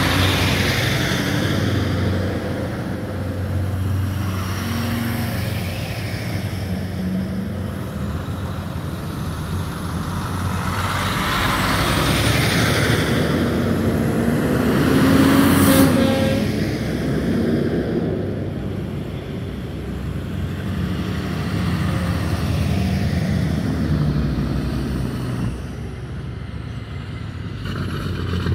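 Heavy-duty tow trucks and wreckers driving past one after another, their diesel engines running in slow swells as each goes by, loudest about halfway through.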